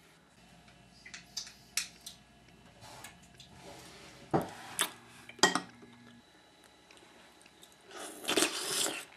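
A metal spoon clinking and scraping against a glass jar of hot fudge and a ceramic bowl: a string of sharp clicks, the loudest about halfway through. Near the end comes a louder rustle lasting about a second.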